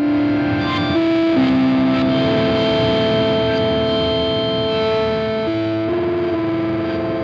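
Digital synthesizer played through a Strymon Iridium amp and cab simulator, giving it a distorted, guitar-amp-like tone. It plays slow held notes that change pitch a few times over a sustained chord.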